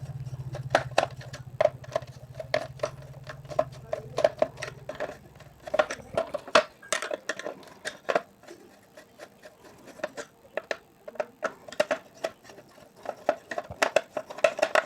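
Screwdriver backing out small screws from the plastic back of a battery wall clock: a run of irregular small clicks and scrapes. A low steady hum sounds under the first six seconds, then stops.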